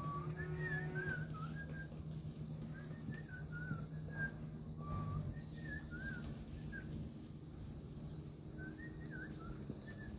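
Small birds chirping in short, wavy, high notes that come in scattered clusters, over a steady low hum.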